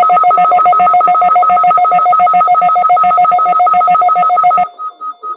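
Weather radio alert alarm: a loud electronic beeping in two pitches, pulsing about eight times a second. Near the end it drops abruptly to a fainter, slower beeping.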